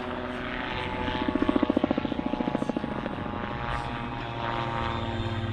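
Calidus autogyro in flight: its engine and pusher propeller drone steadily, with a rapid pulsing beat over the first few seconds that then fades, and the engine tone shifts a little in pitch near the end.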